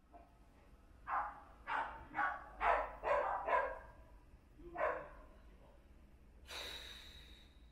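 A dog barking off-camera: a quick run of six short barks, then one more a second later. A short hiss follows near the end.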